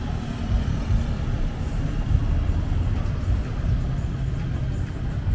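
Busy city street ambience: a steady low rumble of passing road traffic.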